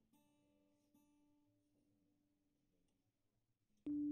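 Acoustic guitar being tuned: a single string plucked softly and let ring, plucked again about a second in, then a much louder pluck of the same note near the end.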